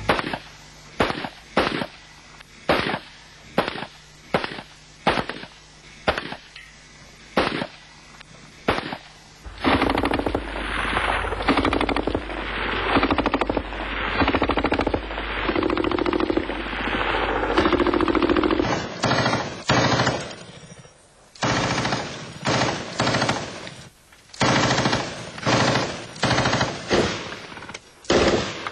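Gunfire: about a dozen single shots roughly two-thirds of a second apart. Then about nine seconds of an armoured 4x4's engine running as it drives. Then a turret-mounted machine gun firing short bursts of three or four rounds.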